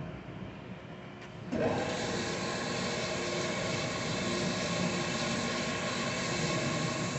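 Hyd-Mech S-20 horizontal bandsaw running. A low hum gives way about a second and a half in to a louder, steady mechanical running sound with several steady tones in it.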